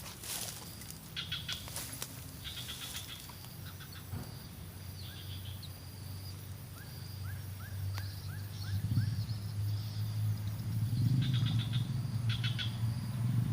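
Wild birds calling: repeated short buzzy trills and a quick series of about seven short rising chirps, over a low rumble that grows louder in the second half.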